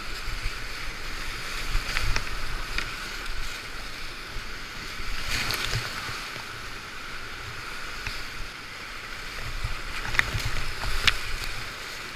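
Big-water river rapids rushing and churning around a whitewater kayak at high flow, with a steady low rumble. Sharp splashes of waves and paddle strokes hit the boat about two seconds in, around the middle, and twice near the end.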